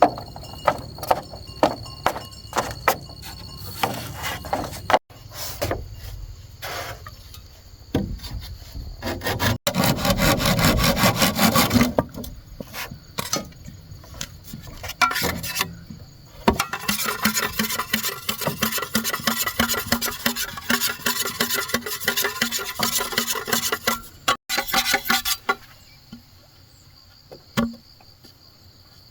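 Hand sawing through bamboo in fast, even strokes, in two long runs, with sharp knocks of tools on bamboo in the first few seconds. Insects trill faintly at the start and near the end.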